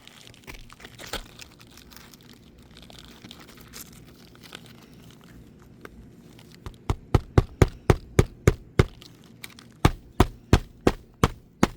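Hammer driving a roofing nail into an asphalt shingle: faint rustling of shingles, then, about seven seconds in, a quick run of about ten sharp strikes, a short pause, and about five more.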